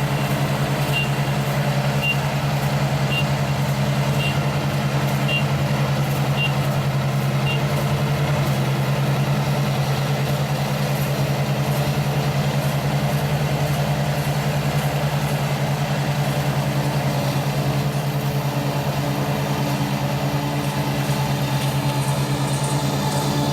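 ISEKI rice combine harvester running steadily at work, its engine a constant drone. For the first seven seconds or so a short high warning beep sounds about once a second, then stops.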